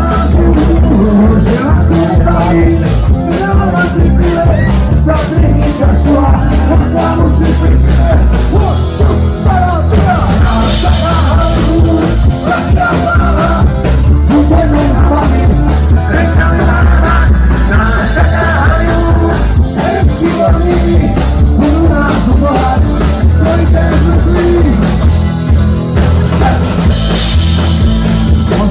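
Live punk band playing a fast, loud song with drums, guitars and singing, in a rough, distorted recording.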